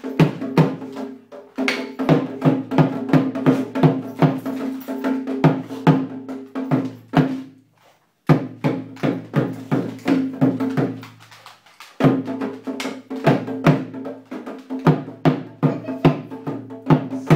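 A dhol beaten with makeshift sticks, a railway-track piece and a paintbrush. It is played in quick uneven strokes, two to three a second, each with a low ringing tone. The drumming breaks off briefly about halfway and then starts again.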